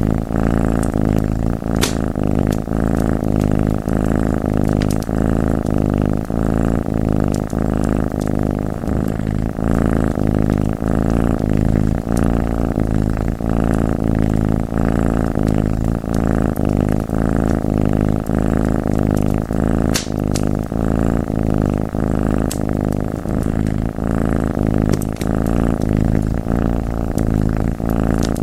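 Cat purring loudly and continuously, rising and falling in an even rhythm with each breath. A few sharp crackles from a wood fire pop over it, the clearest about two seconds in and again near twenty seconds.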